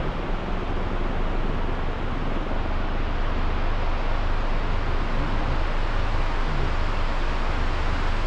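Steady rushing noise with a deep rumble, typical of wind on the microphone while riding a moving vehicle.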